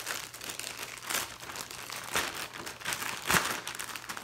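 Plastic poly mailer bag crinkling and rustling as hands pull it open and lift it. There are several sharper crackles along the way, the loudest about three seconds in.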